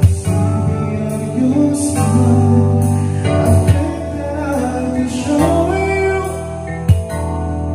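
Karaoke song playing back from a Platinum Cello 2 karaoke player: a band backing track with a sung melody, and a single sharp thump near the end.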